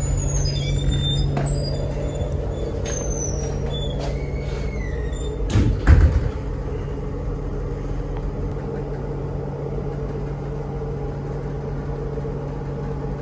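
Steady low drone of the ferry's engines. Short high squeaks come in the first few seconds, and a door shuts with a loud thud about six seconds in.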